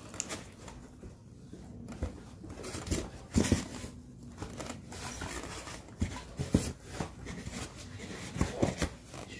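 Irregular rustling and crumpling of fabric as a folded, cotton-padded mattress is pushed and tucked into a small wooden cradle, with a few louder, brief handling sounds.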